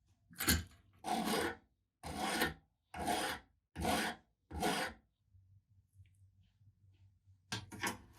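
Six even, rasping hand strokes of abrasive work, like filing, each about half a second long and coming roughly one every 0.7 seconds. They are followed by a few faint clicks near the end.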